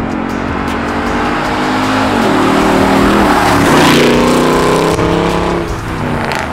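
Exhaust note of a 2014 Toyota Tundra fitted with a Borla Touring cat-back system and Carven R-Series mufflers, under throttle. The pitch dips briefly about two seconds in, then rises and gets loudest about four seconds in before easing off again.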